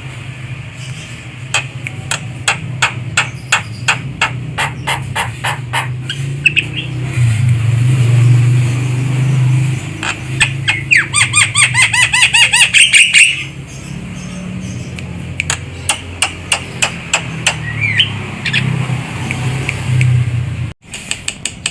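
Javan myna calling: series of sharp clicking notes, with a fast run of harsh, rising chattering notes about halfway through, over a steady low hum.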